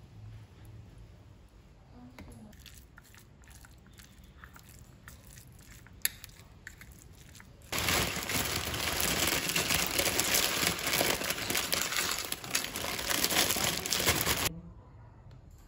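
A few faint clicks and taps, then about eight seconds in, a plastic bag of tortilla chips crinkles loudly for about seven seconds as the chips are shaken out onto a plate, stopping suddenly.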